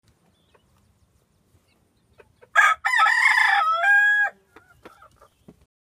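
A rooster crowing once, about two and a half seconds in: a short opening note, then a long call that steps down in pitch and is held before it stops.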